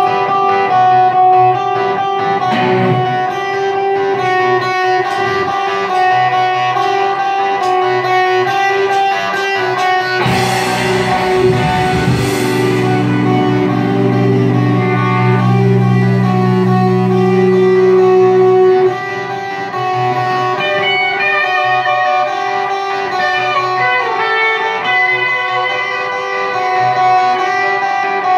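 Live rock band playing an instrumental passage: electric guitars with bass and drums. A wash of cymbals rises around ten seconds in, followed by long held low notes, and the band drops back briefly a little before twenty seconds.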